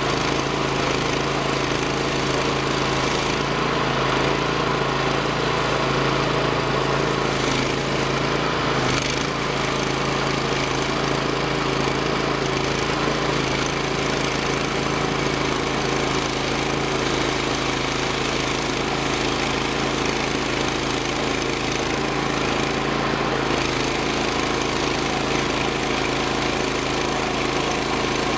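Engine of a Hud-Son portable bandsaw sawmill running steadily at a constant pitch.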